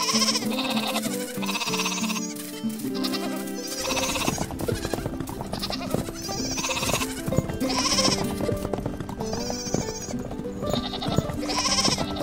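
Sheep bleating again and again, a call about every second, over background music.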